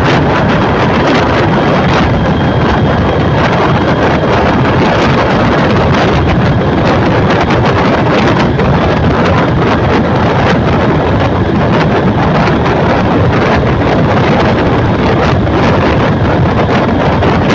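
Loud, steady wind buffeting the microphone, a dense rushing noise heaviest in the low end.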